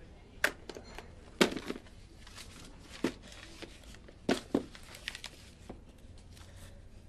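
A handful of sharp knocks and clicks, irregularly spaced, with some rustling, the loudest about half a second and a second and a half in.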